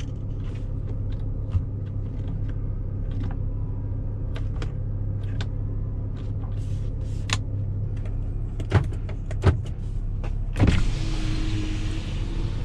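Cabin sound of a 2019 Chevrolet Colorado's 3.6-litre V6 petrol engine running at a steady low hum while the truck is driven off-road, with scattered knocks and rattles from the cabin that grow louder near the end. About two seconds before the end, a steady hiss joins in.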